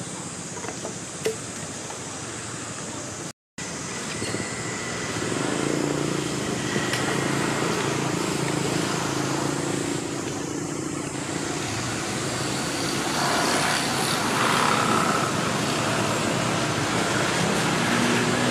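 Steady outdoor background noise with a low motor hum, cut by a brief dropout about three seconds in, after which the hum comes back louder.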